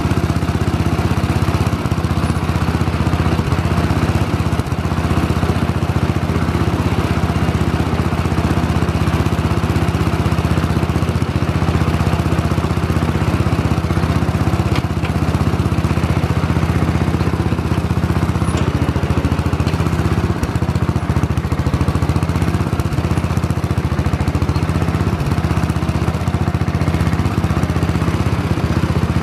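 1970 Sears SS14 garden tractor's engine running steadily at an even speed.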